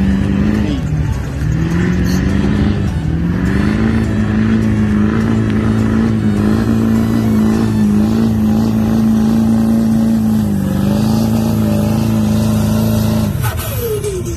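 Diesel pickup engine held at high revs under heavy load, pulling a sled down a dirt track. The revs dip briefly a few times, then fall away near the end as the run finishes.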